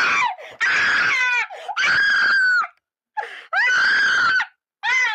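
A girl screaming in excitement over a video call, four long high-pitched screams with short breaks between them and a fifth starting near the end, loud enough to blow out her microphone.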